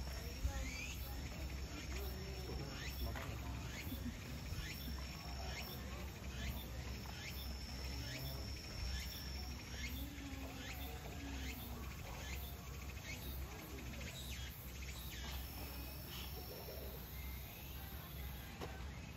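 Insects trilling: a high, steady tone that comes and goes in stretches of a second or two. Short chirps are scattered through it, over a low, steady rumble.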